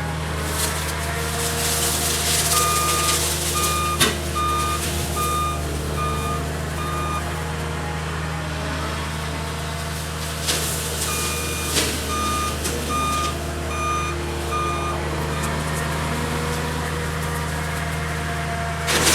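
Cat 279D compact track loader's diesel engine running steadily, with its backup alarm beeping in two runs of about one and a half beeps a second as the machine reverses. A single sharp knock comes about four seconds in.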